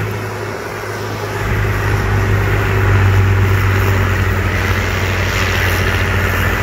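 Allis-Chalmers 7060's 301 cubic-inch six-cylinder diesel engine running steadily, hooked to a pulling sled, growing louder about a second and a half in and then holding at one even pitch.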